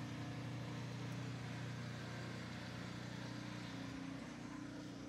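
Snowblower engine running steadily: a low, even engine hum that eases off a little near the end.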